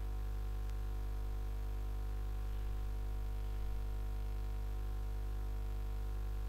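Steady electrical mains hum, a constant low buzz with a faint hiss over it and no other change.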